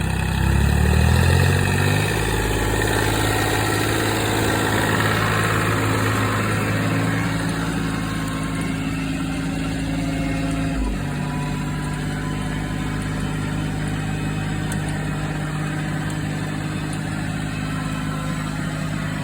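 Iseki TU155F mini tractor's diesel engine running while rotary tilling. It speeds up over the first couple of seconds and then runs steadily. Its pitch steps down slightly about eleven seconds in.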